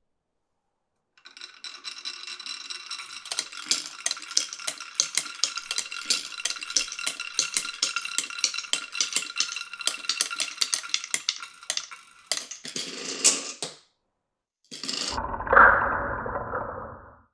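Glass marbles rolling and clattering along a marble run: a dense run of rapid clicks over a steady ringing for about eleven seconds. Near the end comes a louder clack, then a lower rolling rumble that fades.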